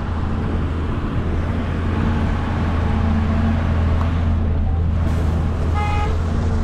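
An engine running at a steady idle, a low even drone. Near six seconds in there is a brief high-pitched tone.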